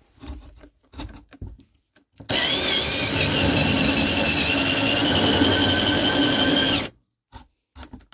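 Cordless 20-volt drill turning a 40 mm metal hole saw against wood boards. It runs steadily with a motor whine for about four and a half seconds, then stops suddenly. A few light handling knocks come before it starts.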